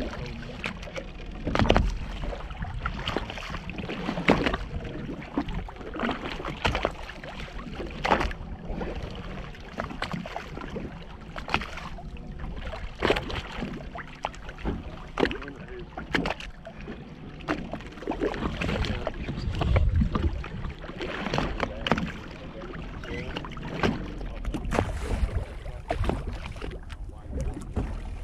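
Water slapping and sloshing against the hull of a drifting fishing boat, with irregular sharp knocks and splashes every second or two.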